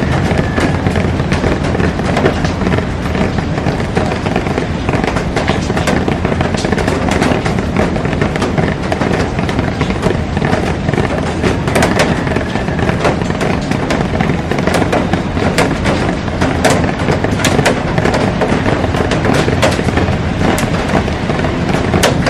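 Heavy rain falling on a glass roof and garden: a steady, dense hiss of rain peppered with many sharp, crackling drop impacts on the glass.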